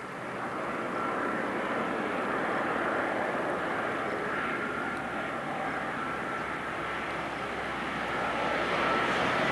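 Airbus A330-200 airliner on final approach, its twin jet engines giving a steady rushing noise with a faint high whine, growing gradually louder as it nears.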